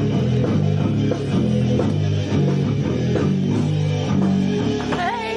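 Electric bass guitar playing a rock line of short, repeated low notes in a steady rhythm.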